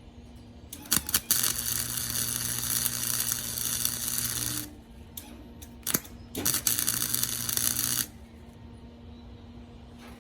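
Arc welder laying two weld beads: a crackling, sizzling arc that strikes with a few sharp pops, runs about four seconds, stops, then strikes again for about two seconds, with a low electrical hum under the arc while it burns.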